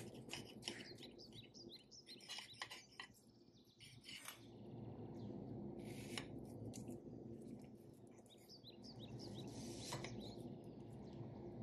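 Birds chirping faintly over a steady low background hiss, with a few soft clinks and scrapes of a steel knife and fork against a ceramic plate as a crepe is cut. The chirps come in short runs, near the start and again near the end.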